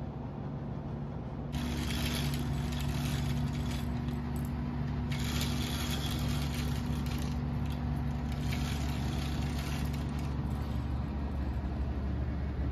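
Steady mechanical hum with a few held low tones, joined about a second and a half in by a louder, wavering rushing noise.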